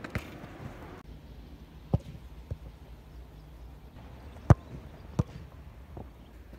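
Football being struck on grass: a few lighter thuds, then a hard kick about four and a half seconds in followed by a second thud under a second later, as the goalkeeper dives at the shot.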